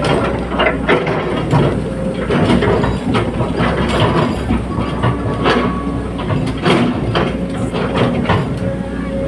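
Hydraulic excavator's diesel engine running steadily, with many irregular metallic clanks and knocks from the machine working.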